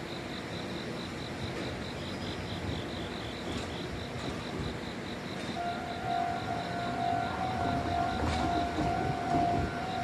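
Station noise around two Meitetsu electric trains standing at the platform, with a high beeping pulsing about three or four times a second. About six seconds in, a steady tone starts and holds.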